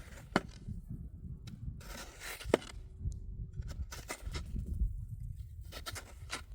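Two sharp knocks about two seconds apart, the second the louder, among irregular scraping and handling noises over a low rumble.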